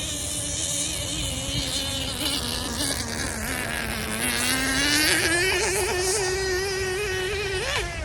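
A small engine whining steadily. Its pitch sinks slowly, climbs about four seconds in and holds, then cuts off suddenly near the end.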